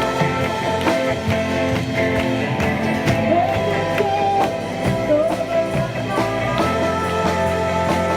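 Music with singing and guitar, in a rock style, with a steady beat.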